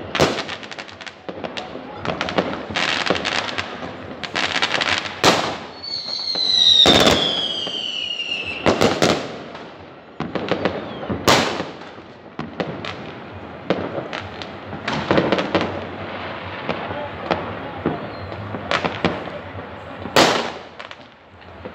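Fireworks going off across a city: many bangs and crackles at irregular intervals, with one long whistle falling in pitch about seven seconds in.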